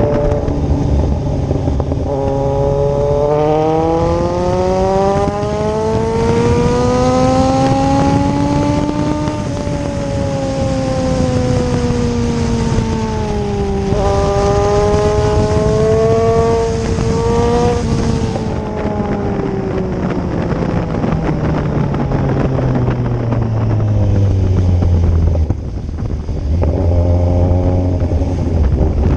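Kawasaki Z1000 inline-four engine under way. Its pitch climbs steadily, eases off, climbs again, then falls away for a long stretch. Near the end it breaks briefly and rises again, as with a gear change.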